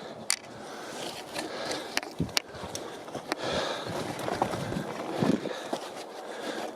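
Wind buffeting the microphone in low gusts over a hiker's heavy breathing, with the scattered crunch of footsteps on a rocky trail.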